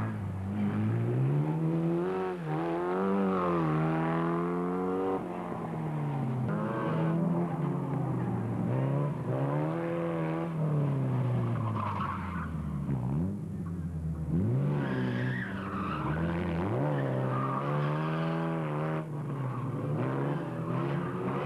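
Formula Ford single-seater's engine at full throttle, revs climbing and dropping again and again as the car is flung through tight slalom turns, with tyre squeal.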